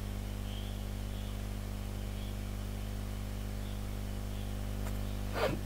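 Steady electrical mains hum with a faint hiss. A brief noise comes near the end.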